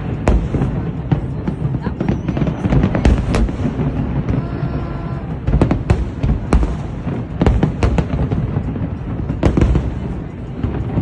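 A fireworks display: shells bursting in many sharp, irregular bangs over a continuous low rumble, with music playing underneath.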